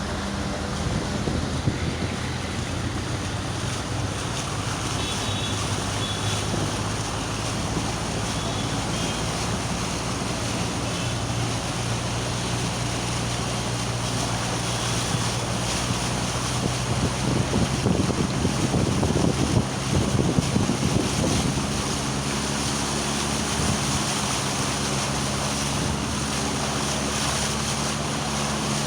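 Flooded-street sound: a steady rush of water and wind noise on the microphone over the low, steady hum of a running engine, growing louder and rougher for a few seconds about two-thirds of the way through.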